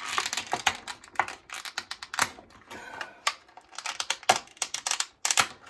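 Clear plastic blister tray crackling and clicking in quick, irregular snaps as fingers press and flex it to pop small spare action-figure hands out of their moulded pockets.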